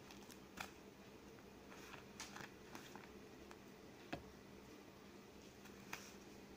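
Near silence: room tone with a faint steady hum and a few soft ticks.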